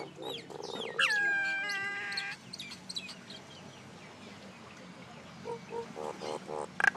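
Common myna calling: about a second in, a loud call that drops in pitch and then holds for about a second and a half, followed by scattered short chirps, and near the end a run of short repeated notes that grows louder.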